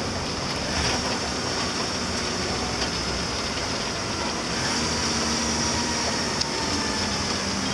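A bus engine running and its tyres on a gravel road, heard from inside the cabin as a steady drone and rumble while the bus drives slowly along.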